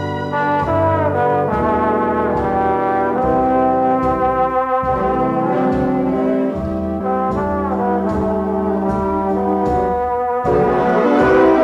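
Orchestral pop music with a brass section playing the melody over a pulsing bass line, without singing.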